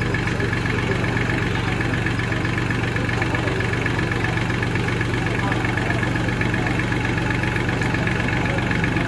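Diesel engine of a Massey Ferguson 6028 four-wheel-drive tractor running steadily at a constant speed.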